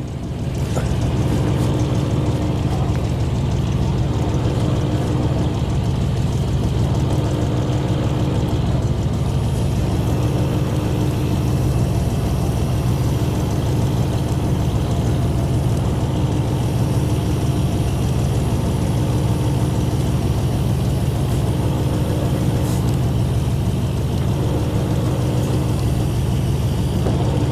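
Fishing boat's engine running steadily, a low hum, with a fainter tone that comes and goes every couple of seconds.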